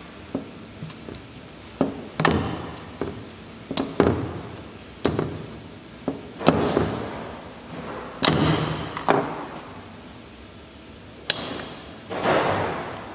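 A dozen or so irregular sharp knocks and clanks of tools on metal during suspension ball-joint work, some trailing off over about a second.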